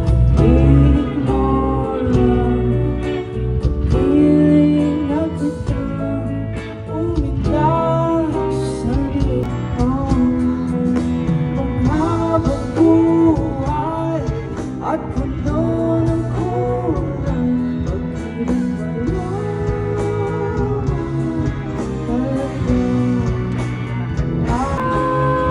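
Live pop song: a singer's melody over a band with guitar and a steady bass.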